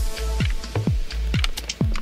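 Electronic background music with a steady beat: a deep kick drum about twice a second, sharp high percussion hits and sustained synth notes.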